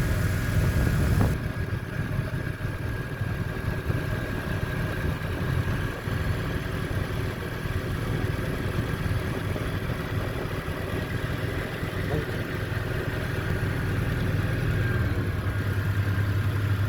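Toyota Surf's engine idling steadily, a little louder about a second in. The engine is being checked for a high idle caused by two wires fitted the wrong way round on a connector.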